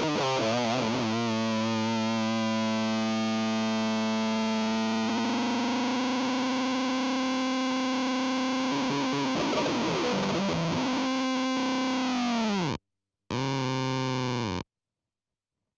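Electric guitar (Epiphone SG 400) through a Z.Vex Fuzz Factory fuzz pedal: a long, heavily fuzzed sustained note that holds for about twelve seconds. It then sags in pitch and cuts off abruptly. A short fuzzed burst follows, then silence.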